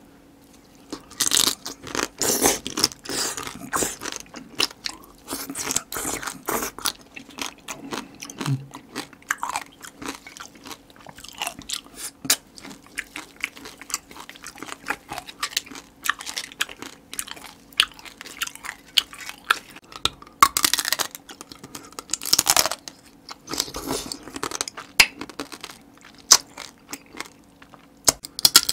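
Close-miked eating of spicy marinated raw crab: wet chewing and crunching of the crab in irregular bursts of smacks and clicks, with a few longer wet bursts.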